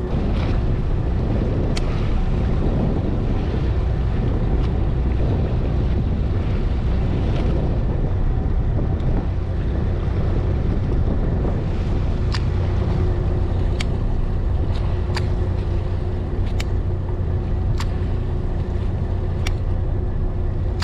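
Fishing boat's engine running steadily with wind buffeting the microphone. A handful of sharp ticks come at irregular intervals through it.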